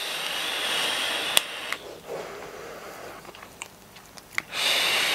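Long draws on an e-cigarette: air hissing through the atomizer as the coil fires, with a couple of sharp crackles. A quieter breath out follows, and a second draw starts about four and a half seconds in.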